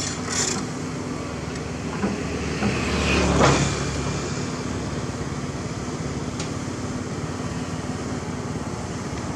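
Komatsu PC228 excavator's diesel engine running steadily as the operator works the controls, swelling louder briefly about three seconds in.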